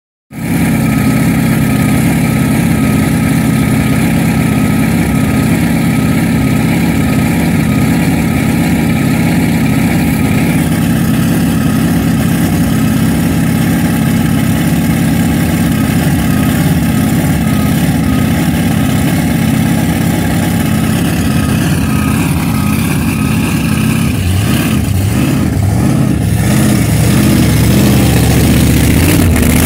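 Supercharged V8 engine of a Chevy II Nova drag car idling with a choppy, uneven lope. It gets a little louder near the end as the car pulls forward.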